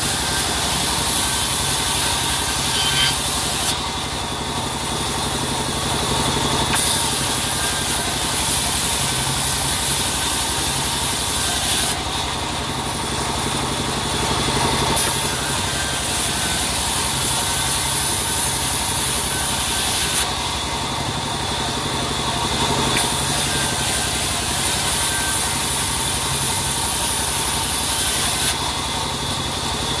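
Band saw resawing a teak slab, with a steady machine hum under the hiss of the blade cutting the wood. The hiss comes in four stretches of about five seconds and falls back for a few seconds between them, leaving only the saw running.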